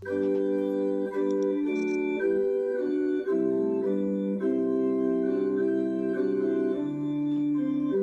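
Organ playing slow, sustained chords that change roughly once a second, starting abruptly.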